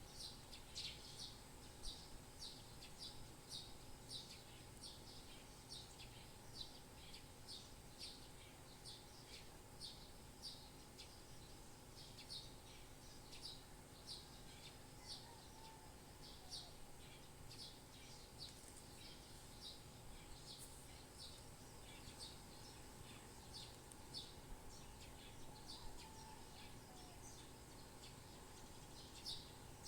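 Birds chirping: short, high chirps repeating about two a second, over a faint steady hum.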